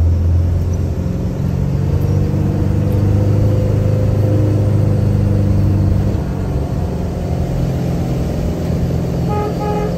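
Car engine pulling under load up a steep slope at steady revs, easing off about six seconds in. Near the end come two short toots of the car horn.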